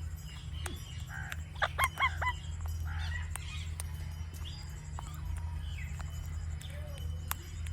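Indian ringneck parakeet giving a quick run of four harsh squawks about a second and a half in, with scattered short clicks and chirps around them. A steady low hum runs underneath.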